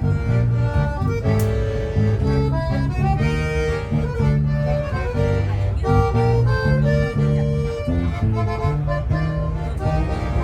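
Live music played on a commuter train: a free-reed instrument holding chords with a melody moving over them, changing notes every half second or so.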